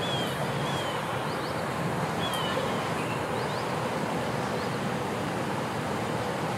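Small birds chirping, a few short repeated slurred notes near the start and scattered brief chirps after, over a steady rushing background noise.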